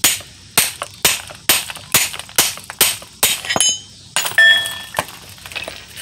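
Hammer driving a cold chisel against the leftover part of a wheel bearing stuck on an old front wheel hub, to knock it off: about eight sharp metal strikes at roughly two a second, then a louder blow a little past the middle that leaves a ringing metallic tone, and a few lighter taps.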